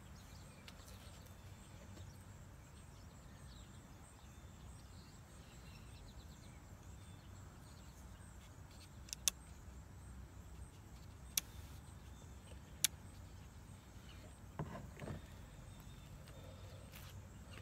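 Faint steady low rumble in the background with three sharp plastic clicks, a second or two apart, near the middle: the dilution dial on a Torq Foam Blaster 6 garden-hose foam gun being handled. A short softer knock follows a little later.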